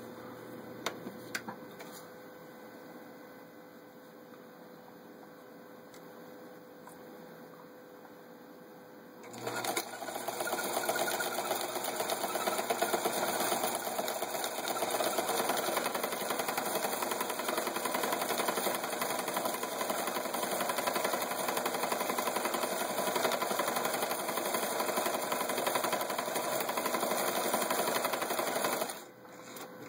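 Vintage Necchi Supernova Ultra sewing machine starting about nine seconds in, running steadily at speed for about twenty seconds while stitching a cam-driven crescent decorative pattern, then stopping shortly before the end. A few light clicks come before it starts.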